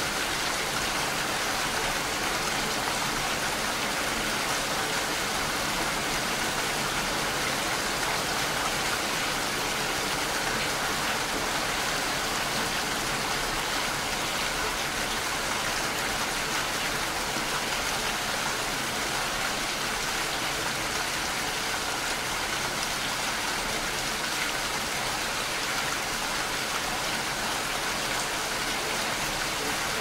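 Steady rain falling, an even continuous hiss with no letup.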